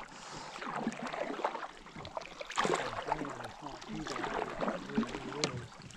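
Canoe paddling: paddle blades dipping and pulling through lake water, with water trickling and lapping along the hull.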